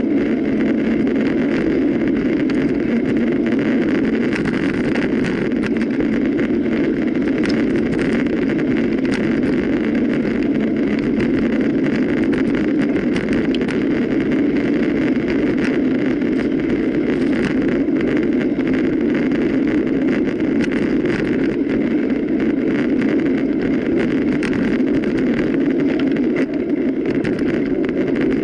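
Mountain bike ridden over rough ground: a steady rushing of tyres and air with frequent small rattles and clicks throughout.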